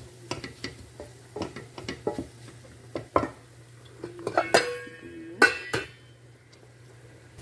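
Wooden spoon knocking and scraping in a metal pot of onions being dry-cooked. About four and a half and five and a half seconds in come two louder ringing metal clanks, the pot's metal lid being handled and set on.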